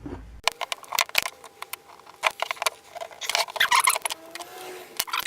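Metal parts and hand tools clicking, knocking and scraping as an old breast drill is being taken apart, a rapid irregular run of sharp clicks that starts about half a second in.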